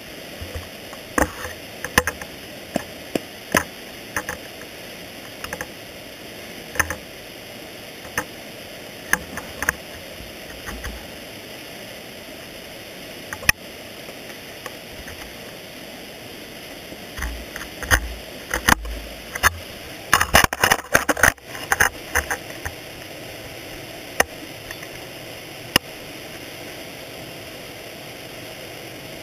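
Ice axe picks scraping and knocking on rock during dry tooling, carried through the axe shaft: scattered sharp clicks and knocks over a steady hiss, with a dense flurry of them about twenty seconds in.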